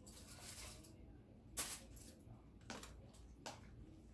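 Quiet handling sounds as food is packed in plastic: a soft rustle, then a sharp click about a second and a half in, and two lighter ticks later.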